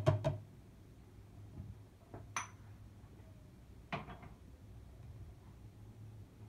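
Boiled chickpeas poured from a small bowl into a plastic blender cup, a quick patter of clicks as they drop in. This is followed by a single ringing clink about two seconds later and a dull knock about four seconds in.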